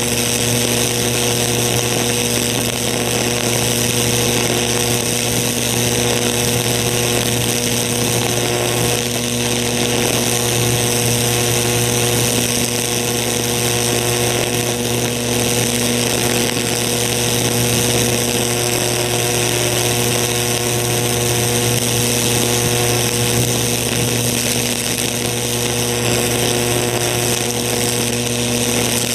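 High-voltage electric arc from a metal rod electrode burning into a pumpkin's flesh: a steady electrical buzz with a hissing crackle, unbroken throughout.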